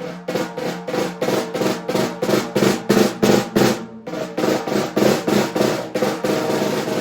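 Snare drum with its snares on, tuned high, struck in even single strokes about three a second that grow louder. After a short break about four seconds in, more strokes run into a sustained roll near the end. The shell is tropical walnut with a maple inlay.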